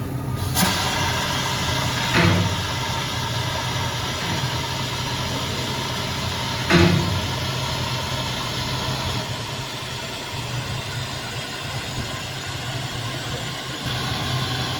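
Compressed-air suction gun running steadily, a rushing hiss of air with a constant low drone as it sucks water off a concrete floor. Three brief clatters stand out, about half a second, two seconds and seven seconds in.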